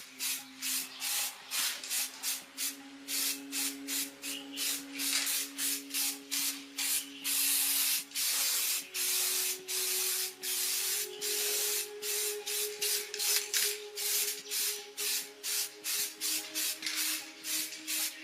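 Rhythmic back-and-forth rubbing strokes, about three a second, as of something being sanded or scrubbed by hand.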